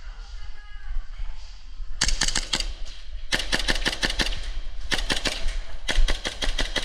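Airsoft gun firing four bursts of rapid shots, each a quick string of sharp cracks at about ten a second, the first about two seconds in.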